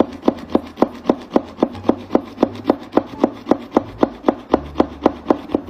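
A paint marker's tip dabbed rapidly and evenly on paper, about four taps a second, over a low hum.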